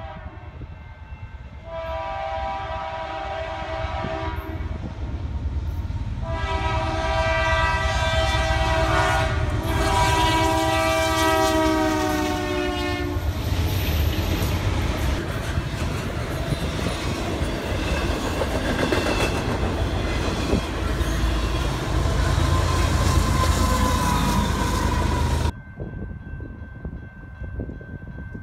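Canadian Pacific freight locomotive sounding its air horn, a short blast and then a long one whose pitch sags slightly near its end as it passes. Then the heavy rumble and clatter of the freight cars rolling by, wheels clicking over the rail joints, which cuts off abruptly a few seconds before the end to much quieter outdoor sound.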